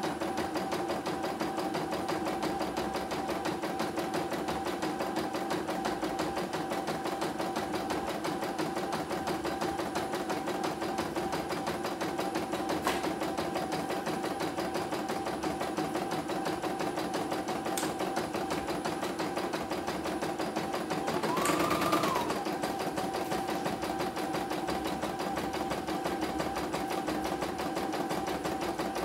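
Computerized single-needle embroidery machine stitching a test design: a steady, fast needle rhythm with the hoop carriage stepping the fabric, running smoothly. About three-quarters of the way through there is a brief louder whine that rises and falls.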